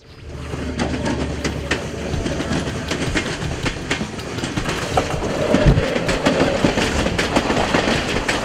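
A train passing close by, its wheels clacking over the rail joints, with a steady rumble. It fades in from silence over the first second.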